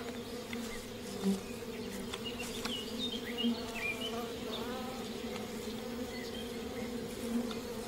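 Angry honeybees buzzing in a steady drone around their smashed-open hive, stirred up by a bear's break-in. A few short high chirps sound around the middle.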